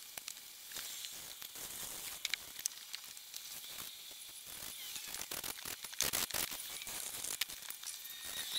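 Faint fizzing crackle of a freshly sprayed chlorine mold cleaner sitting on a vinyl boat seat: many tiny clicks over a soft hiss as the wet film works. A brief louder noise comes about six seconds in.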